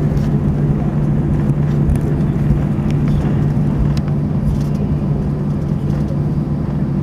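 Airbus A319 jet engines running at taxi power, heard inside the cabin over the wing: a steady loud hum with a strong low drone. A few faint clicks sound over it.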